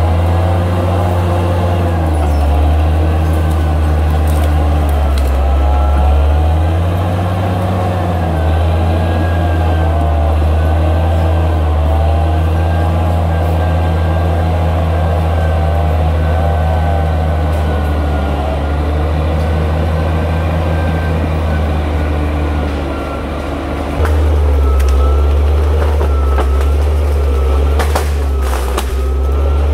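Crawler bulldozer's diesel engine running steadily with a deep drone and a wavering higher whine over it. It dips briefly about three-quarters through and comes back louder, and a few sharp knocks come near the end.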